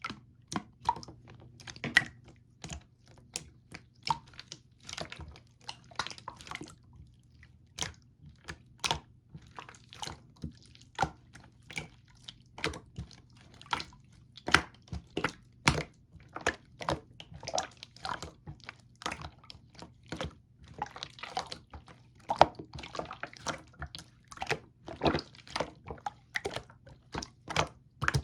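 Clear slime being squished and pressed by hand, making irregular wet clicks and pops, several a second, over a faint low hum.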